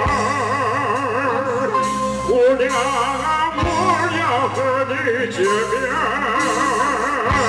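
Live getai stage singing amplified through a PA over a live band, with the voice carrying a fast, wide vibrato. There are low drum hits at the start, about halfway through and near the end.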